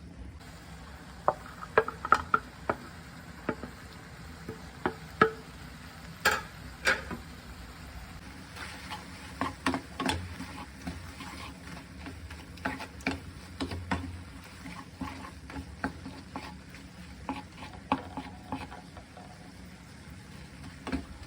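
Food sizzling in a hot pan while a utensil stirs it, with irregular sharp clicks and scrapes of the utensil against the pan over the steady frying.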